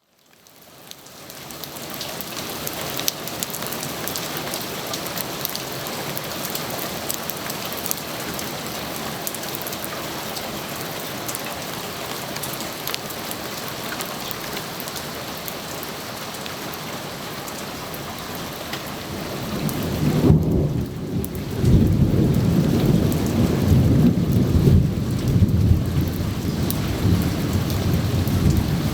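Steady rain falling, with many fine drop ticks in the hiss, fading in over the first couple of seconds. About twenty seconds in, a long low rumble of thunder rolls in and becomes the loudest sound, still rumbling as the rain continues.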